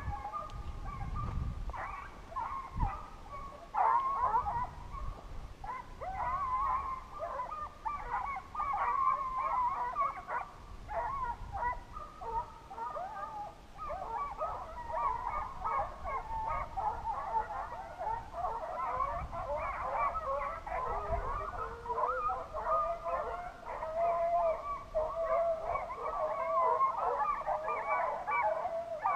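A pack of hunting hounds baying in many overlapping voices, in full cry, the sign that the pack is running a coyote.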